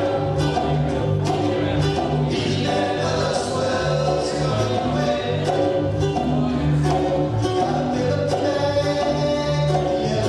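Music with singing, over a bass line and regular percussive beats.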